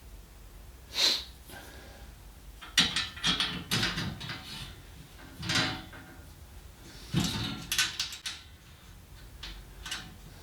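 Basket and parts of a garden hose reel cart being handled and fitted: bursts of knocking, rattling and scraping, in several separate clusters.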